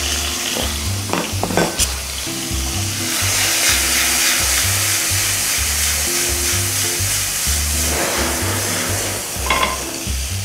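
Raw shrimp sizzling in hot oil in a nonstick frying pan as they are tossed. The steady hiss is strongest in the middle and eases a little near the end.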